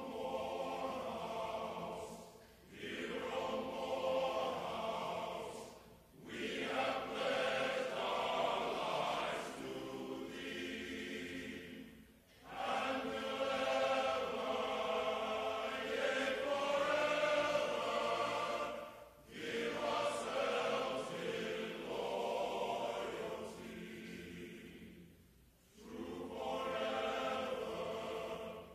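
Choral singing: a choir holding long sung phrases of a few seconds each, with brief pauses between them.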